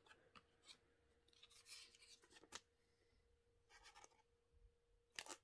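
Near silence, with faint rustles and a few light clicks of a trading card being handled and slid into a clear plastic sleeve.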